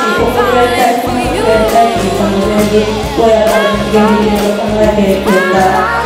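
Music: a woman's voice singing a melody over sustained instrumental accompaniment.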